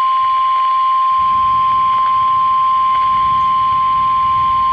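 NOAA Weather Radio's single steady 1050 Hz warning alarm tone, held unbroken. It signals that a warning message follows, here a severe thunderstorm warning.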